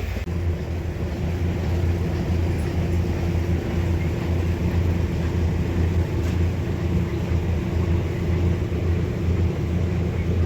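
A machine running steadily with an even, low hum.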